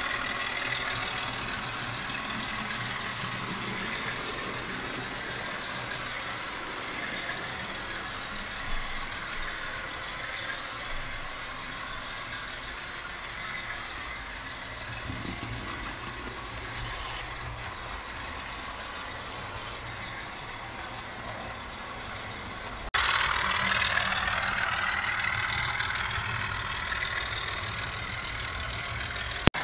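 Model railway trains running on the layout: a steady whir and rumble of loco motors and wheels on the track. It jumps suddenly louder about three quarters of the way through.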